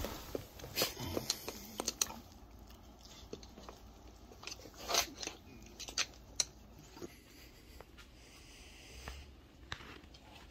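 Irregular small clicks and brief rustles of a Shiba Inu moving about close by, its claws ticking on the floor and its fur brushing near the microphone.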